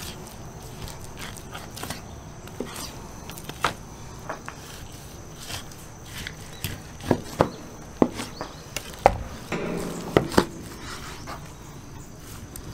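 Knife cutting raw beef rib into tomahawk steaks on a plastic cutting board: irregular sharp knocks and taps of the blade and the wet meat against the board, coming thickest in the second half, with a short rustle of handling just before the last few knocks.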